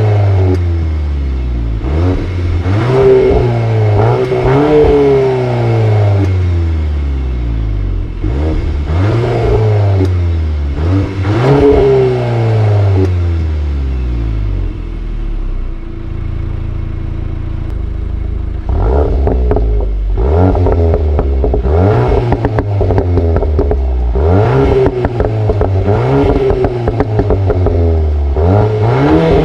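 VW Golf 8 R's turbocharged 2.0-litre four-cylinder, through an Akrapovic exhaust, being revved while stationary: a series of rev blips that climb and fall back every couple of seconds, then idling steadily for a few seconds. After it is switched from Comfort to Race mode, the blips come closer together, with sharp cracks near the end.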